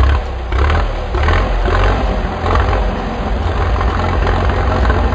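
Tractor engine running loudly and steadily.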